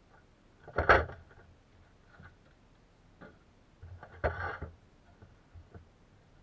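Handling knocks and clatter from a plastic-and-metal LED work light and its folding stand: a loud clatter about a second in, and another run of knocks around four seconds in as it is set down on the workbench, with a few light clicks between and after.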